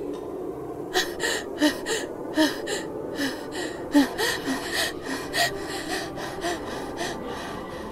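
A person's rapid, irregular breathy gasps, about three a second, starting about a second in and dying away near the end, over a steady low drone.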